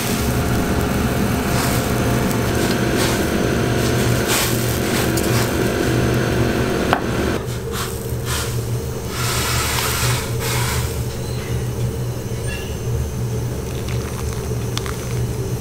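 Gas wok burner running with a steady low roar under egg soup boiling in a wok. A metal ladle clinks sharply against the wok about seven seconds in, and bursts of hiss and splashing follow as the soup is stirred and ladled out.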